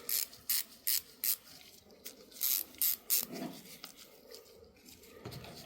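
A run of short scraping strokes, like metal rubbing or rasping against metal: about four in quick succession, then a pause, then three more, with quieter handling noise between.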